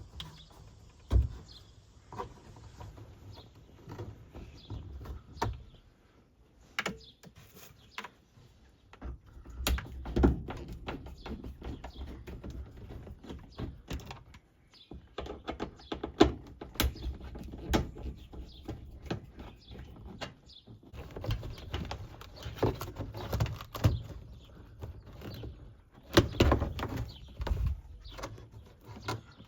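Scattered knocks, clicks and rustling of hands working on a van's bodywork and panels while feeding camera wires up out of sight.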